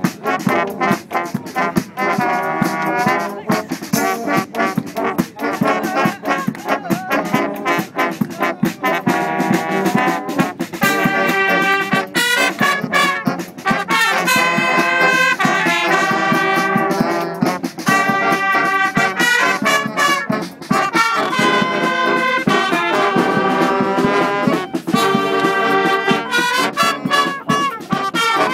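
Street brass band of trumpets, trombones, sousaphone and saxophones playing a tune together. From about ten seconds in the band plays fuller and louder.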